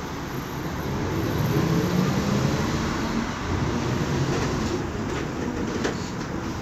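A MAN Lion's Classic city bus, its CNG engine and ZF Ecomat automatic gearbox driving it along, heard from inside the cabin. The engine note rises and grows louder over the first two seconds as the bus pulls away, then settles into a steady run. There is a single short knock near the end.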